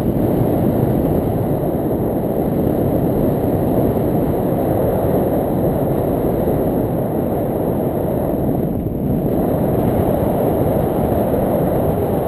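Wind noise from the airflow of a tandem paraglider in flight, buffeting a selfie-stick camera's microphone: a steady, low rushing rumble with no engine tone.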